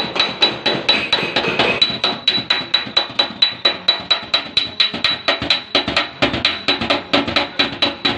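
Rapid, even hammer taps on a car fender's sheet metal, about five or six blows a second, with a high metallic ring over them: cold-working a crash dent back into shape.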